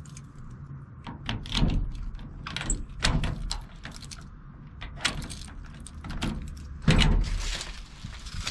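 Unlocking and opening an old sheet-metal garage door: a series of clicks and rattles from the key in the lock and the lever handle, then a loud clunk as the door is pulled open, about a second and a half before the end.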